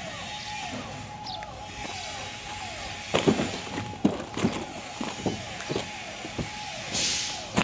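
Drum concrete mixer running, a steady mechanical whine that dips in pitch about twice a second. From about three seconds in, irregular footsteps crunch on gravel and sheeting, with a short hiss near the end.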